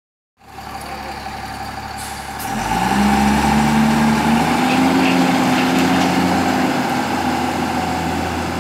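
Diesel engine of an Eicher Pro 5025 tipper truck idling, then revving up about two and a half seconds in and holding at a higher, louder steady speed as the loaded truck moves off.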